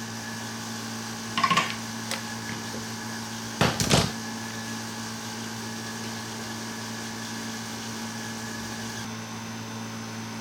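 A machine runs with a steady hum, and two short bursts of knocking or clattering come through it, the first about a second and a half in, the second and louder one about four seconds in.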